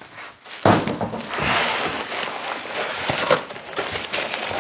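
Cardboard box and packing material being handled: a knock about half a second in, then continuous rustling and scraping.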